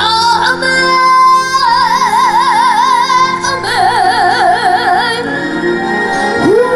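A boy singing a trot ballad in a high voice, with wide vibrato on long held notes, over a band backing track.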